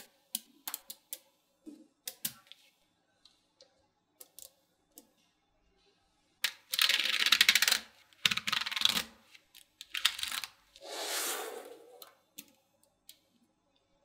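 Small magnetic balls clicking as they snap together: scattered single clicks, then about halfway through a loud, rapid rattle of many balls snapping on in quick succession, a second shorter rattle, and a brief scraping noise.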